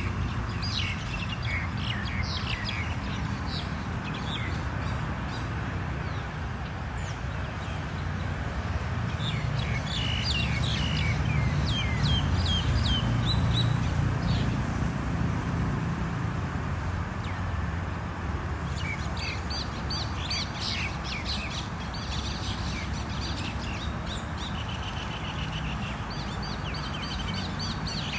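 Mynas squabbling, a run of many short, harsh chirps and squawks with a brief lull past the middle, over a steady low rumble.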